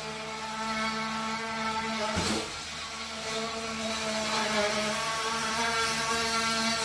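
Handheld electric power tool running at a steady whine, with a knock and a brief drop in speed about two seconds in before it picks up again.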